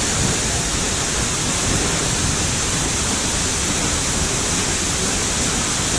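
A large waterfall with a heavy, fast flow, plunging about 25 metres, giving a loud, steady rush of falling water.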